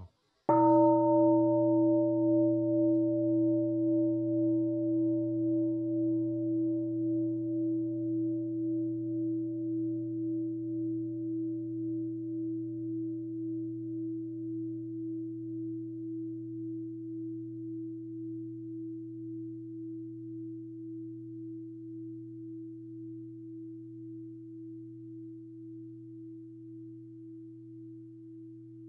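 A singing bowl struck once, ringing on with a wavering hum that slowly fades.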